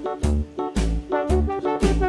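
Upbeat children's background music with a steady beat and brass-like melody notes.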